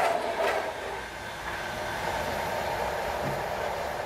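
Passenger train running over the level crossing. The last coach passes in the first second, then the train's rumble fades and settles to a lower steady noise as it moves away.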